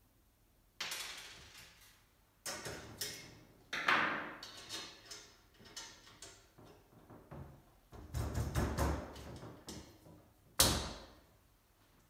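Irregular metal clinks and knocks, each ringing briefly, as bolts and tools are handled against a tubular metal wheelbarrow frame during assembly. A busier patch of clatter comes past the middle, and the loudest single knock is near the end.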